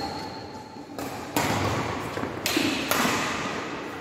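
Badminton rackets striking a shuttlecock during a doubles rally, several sharp hits about a second apart, echoing in a large hall with a hard wooden floor.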